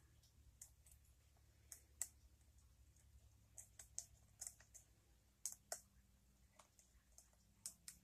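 Lock pick working the pins inside a challenge lock: faint, irregular sharp metallic clicks, a dozen or so, as the pins are lifted and tested for binding.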